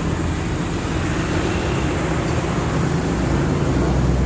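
Motor vehicle engine running close by, a steady low rumble that grows louder near the end, over street traffic noise.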